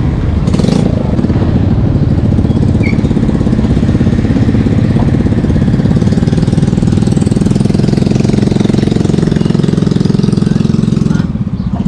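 A small engine running steadily close by, with a fast, even pulse, briefly dropping in level near the end.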